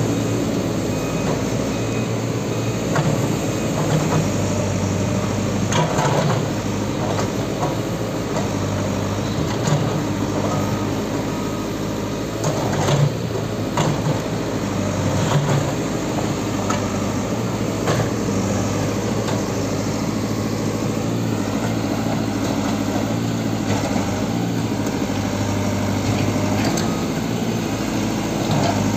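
JCB 3CX backhoe loader's diesel engine running steadily while the backhoe breaks down a concrete wall, with sharp knocks and clatters of concrete every few seconds.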